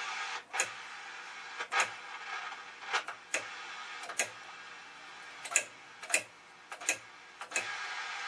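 Vintage Capehart 325 tube television being tuned: about nine sharp clicks, roughly one a second, over steady static hiss from its speaker. The hiss level changes between clicks, as the channel selector is stepped through the channels.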